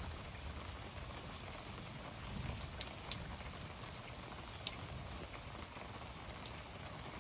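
Steady rain hissing, with a few separate drops ticking sharply close by.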